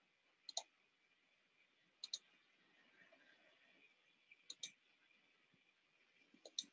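Computer mouse clicking four times, about every two seconds, each click a quick double tick, over near-silent room tone.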